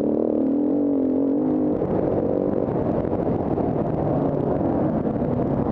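KTM 350 EXC-F Six Days single-cylinder four-stroke enduro engine under way off-road. It pulls at a steady pitch for about a second and a half, then goes rough and unsteady as the throttle changes, and picks up a clear note again at the very end.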